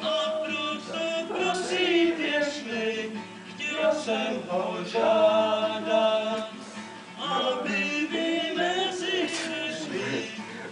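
Male voices singing a tune with long held notes, more than one voice at once.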